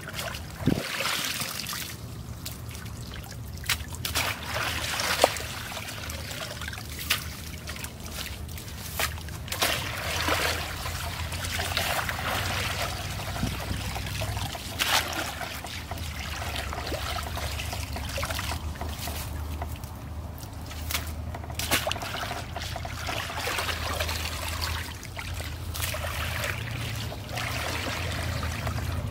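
Shallow muddy stream water splashing and trickling as a woven bamboo scoop basket is dragged through it and lifted, water running back out through the weave. Irregular splashes come again and again over a steady low rumble.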